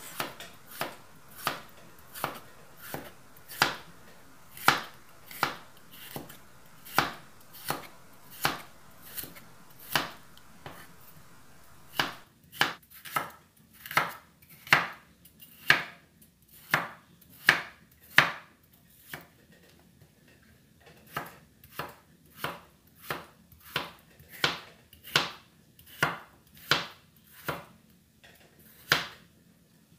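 Kitchen knife slicing peeled chayote on a wooden cutting board: a steady series of sharp knife strokes against the board, about one to two a second. The strokes come a little faster in the middle, with a short pause about two-thirds through.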